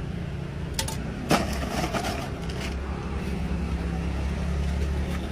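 Sharp clack of a utensil against the food pot about a second in, with light rustling of plastic and styrofoam packing, over a steady low rumble of street traffic.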